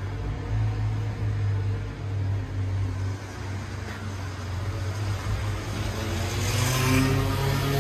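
Steady low rumble of city traffic heard from the street, with a hiss that swells near the end.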